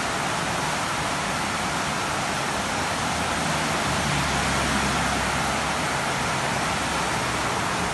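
Steady, even hiss of rushing water from heavy rain and a flooded stream, with a faint low rumble underneath.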